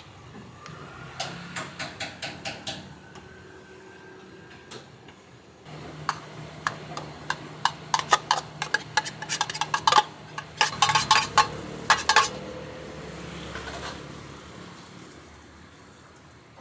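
A metal spoon clinking and scraping against a large stainless-steel pan while rice batter is stirred. A short run of clinks comes about a second in, then a longer, faster and louder run from about six seconds to about twelve.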